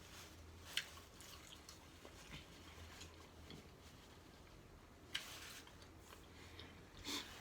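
Faint chewing of a taco, with a few short, soft mouth clicks or smacks: one about a second in, one a little after five seconds, and one near the end.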